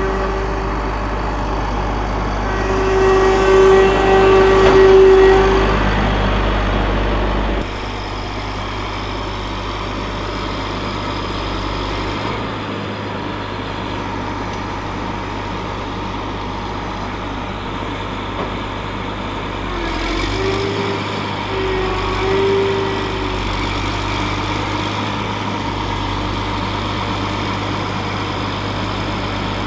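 Cat Challenger MT765C tractor's diesel engine running steadily under a low hum, with a higher whine that rises in about 3 to 6 s in and again around 20 to 23 s in. The deepest part of the engine sound drops a step about 8 s in.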